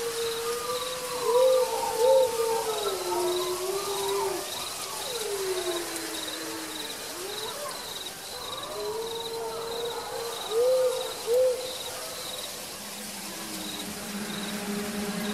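Eerie background sound bed: slow, wavering whistle-like tones that glide up and down, over a regular high cricket-like chirping. A low sustained music drone comes in near the end.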